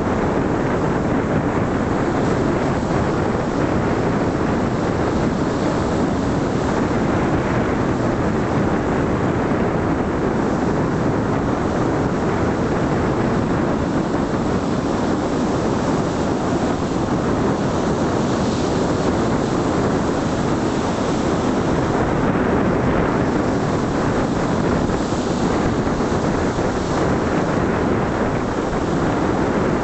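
Steady wind rushing over the microphone, mixed with the wash of small waves breaking in the surf.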